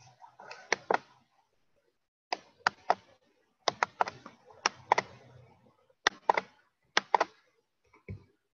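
Sharp clicks and taps in small groups of two or three, about fifteen in all at an uneven pace, with a low thud near the end.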